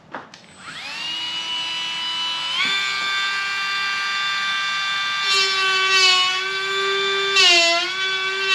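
Tacklife cordless rotary tool switched on with a click and spinning up to a steady high whine. Its pitch steps up about two and a half seconds in, then sags briefly twice in the second half as the bit bears into the material being trimmed.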